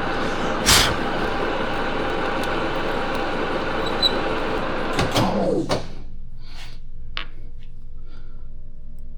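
Metal lathe running during a thread-cutting pass on a steel part, with a sharp knock about a second in. Around five seconds in the lathe is switched off: its spindle whine falls in pitch as it spins down, with a few clunks, and a faint steady hum is left.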